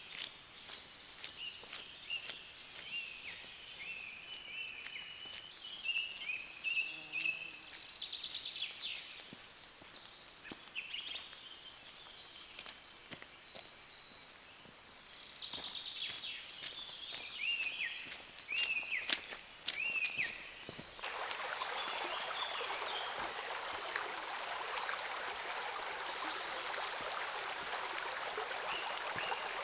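Small birds calling in a series of short chirps, with scattered sharp ticks. About 21 seconds in, this gives way abruptly to a steady rush of water.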